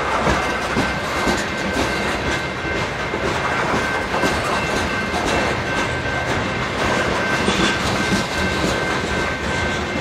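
Loaded covered hopper cars of a freight train rolling past at close range, a steady rumble with the wheels clacking and knocking over the rail joints. A thin steady high tone runs over the rumble.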